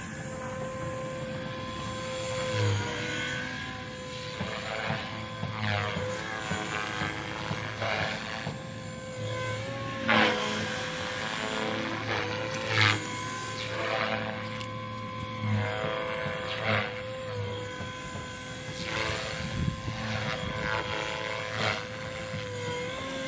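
A small propeller engine droning steadily at one pitch, wavering slightly now and then, with a few brief louder swishes.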